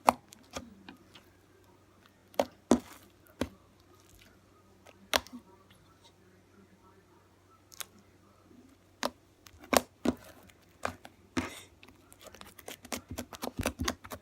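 Slime-making handling sounds: scattered sharp clicks and knocks of containers and utensils, with a couple of short swishes and a quick run of small clicks near the end.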